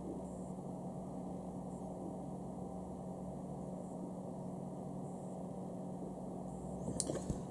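Room tone: a steady low hum with a faint hiss, and two faint clicks near the end.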